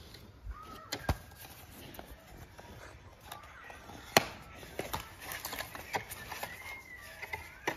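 Cardboard smartphone box and its paper insert being handled: scattered light taps and knocks with some paper rustle, the sharpest knock about four seconds in.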